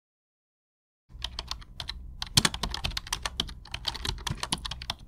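Computer keyboard typing sound effect: rapid, irregular key clicks starting about a second in, over a low steady rumble.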